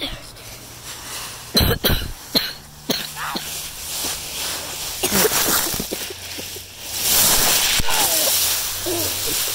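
Dry fallen leaves crunching and rustling as a child jumps and tumbles into a leaf pile, with a few heavy thumps just under two seconds in. The rustling turns loud and dense near the end, and short non-word vocal sounds like coughs or grunts come through.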